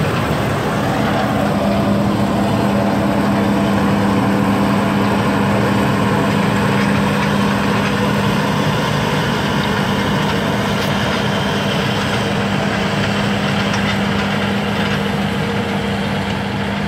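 New Holland combine harvester at work cutting grain: steady engine and threshing machinery noise with a strong constant hum, a little quieter near the end as the machine moves away.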